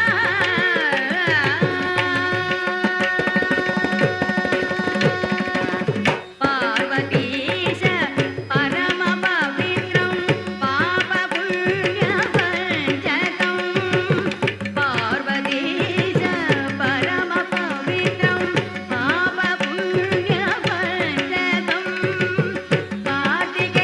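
Carnatic-style Malayalam film song: a sliding, ornamented melodic line over a steady drone, with tabla-like hand-drum percussion keeping a regular beat. The music breaks off briefly about six seconds in.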